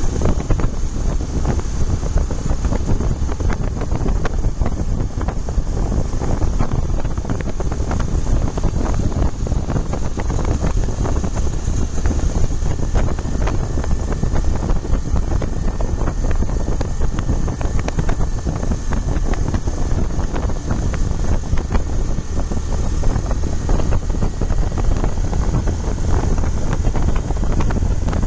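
Steady wind rushing over the microphone of a moving motorbike, with a constant low rumble underneath.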